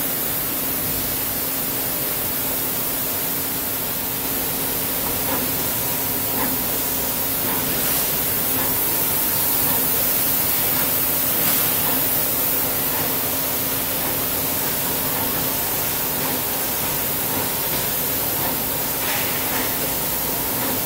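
Doosan Puma 240C CNC lathe running under power: a steady hiss with a low hum and a faint higher tone over it.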